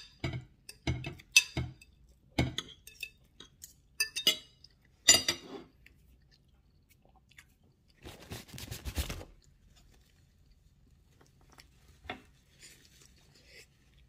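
Cutlery clicking and clinking against a plate several times during a meal, with chewing, then a short scraping or rustling noise about eight seconds in.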